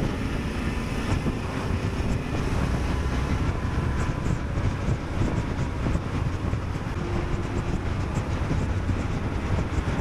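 Adventure motorcycle riding along at road speed: a steady engine and road rumble with wind rushing over the microphone.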